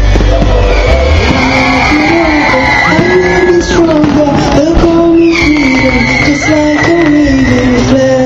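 Loud amplified music with a sliding melody line over a bass beat; the bass drops back about a second in. A couple of sharp bangs cut through near the middle.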